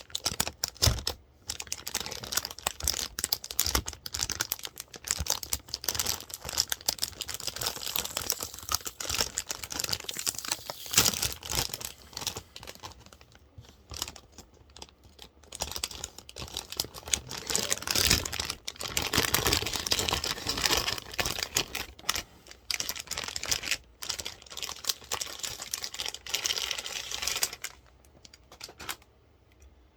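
A motherboard being unboxed: cardboard box and packaging rustling and crinkling, with irregular clicks and taps throughout, quietening over the last couple of seconds.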